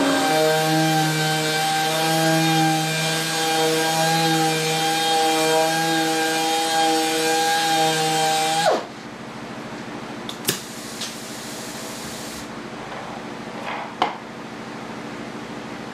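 Pneumatic random orbit sander running on a wood panel with a steady whine, spinning down quickly about two-thirds of the way through. After that comes a quieter steady hiss with a couple of sharp clicks.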